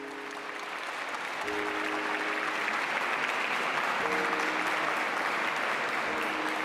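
Audience applauding, the clapping slowly growing louder, with soft held music notes underneath.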